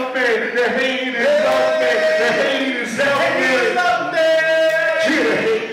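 Several male voices chanting and singing a hip-hop chorus over the backing track, in call-and-response, with some sung notes held for about a second.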